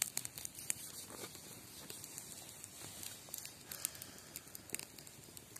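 Campfire burning with faint, irregular crackles and small snaps.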